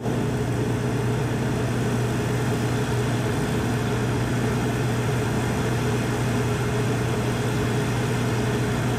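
Cummins QuietConnect 40 kW standby generator, fitted with the Level 2 sound kit, running at 100% load: a steady, even engine drone with a strong low hum.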